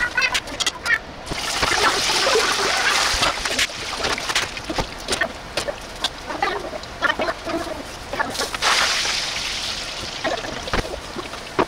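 Hot oil deep-frying pieces of food in a pot, sizzling with constant crackling pops. It swells to a loud hiss about a second and a half in and again about eight and a half seconds in.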